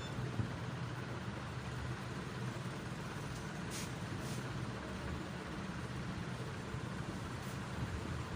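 Steady low rumble of background noise, with two faint soft taps about four seconds in.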